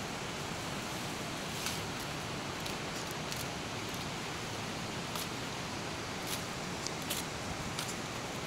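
Leafy branches rustling, with a few faint light cracks of twigs, as a long green stick is pulled out of a bush and trimmed with a blade. Under it runs a steady rushing hiss.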